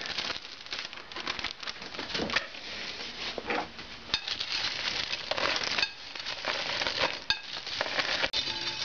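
Trail mix of nuts, pretzels and candy-coated chocolates rattling and clattering as it is scooped by hand out of a ceramic bowl into a plastic zip-top bag, in many irregular little clicks and rattles.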